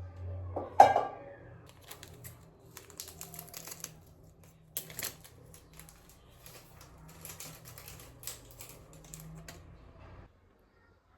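Quick, light clicking in bursts, like fingers typing on a keyboard, with one sharp knock near the start. The sound cuts off abruptly shortly before the end.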